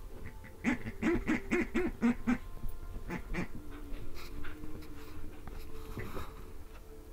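Squeaky pig toy squeaking as a Bedlington terrier bites and squeezes it: a quick run of about seven short honking squeaks, then a few more, spaced out.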